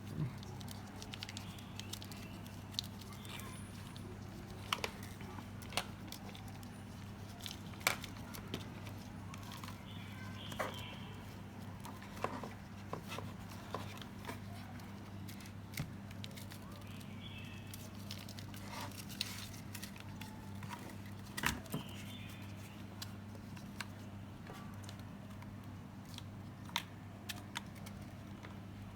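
Scattered small clicks and rattles of hands working a solder-feeding soldering gun, winding the solder wire back onto it, over a steady low hum.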